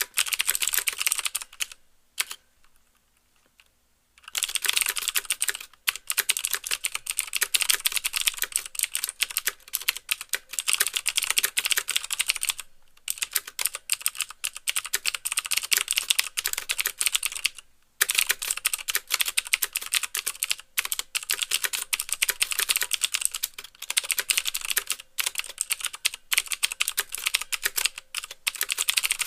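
Fast typing on a mechanical keyboard with clicky Cherry MX Blue switches: a dense run of sharp clicks with the keys bottoming out. It stops for about two seconds near the start, then carries on, with short breaks about halfway and again a little later.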